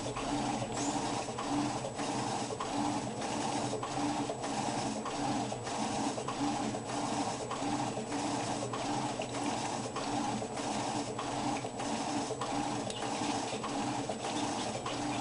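Electrolux washing machine running with an even, rhythmic churning of a little over two strokes a second, as in the back-and-forth agitation of a wash cycle.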